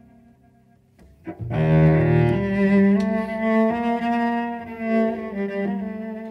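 Solo cello, bowed. After a quiet first second a loud bowed entry comes in about one and a half seconds in, followed by held notes that shift pitch a few times and fade near the end.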